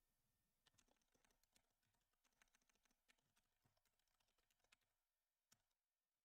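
Very faint typing on a computer keyboard: scattered light key clicks, thinning out towards the end.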